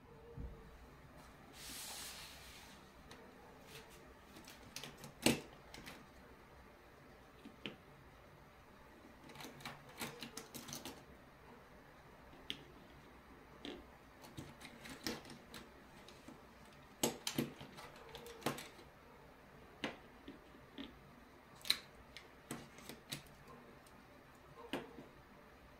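Pens and mechanical pencils clicking and clacking at irregular intervals as they are handled, pulled from a fabric pencil case and set down one at a time on a plastic cutting mat, with a brief rustle about two seconds in.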